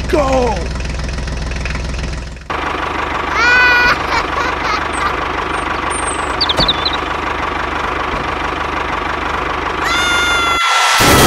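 Tractor engine idling with a steady knocking beat, its tone changing about two and a half seconds in. Short sliding whistle-like tones come in briefly around three and a half seconds and again near the end.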